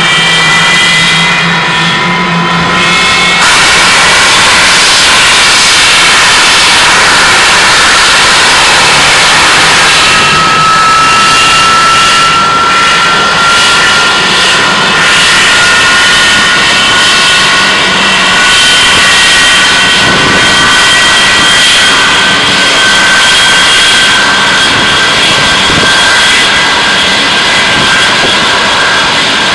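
An English Electric Lightning's Rolls-Royce Avon turbojets running on the ground: a loud, steady jet roar with high whines that slowly rise in pitch as the engines spool up.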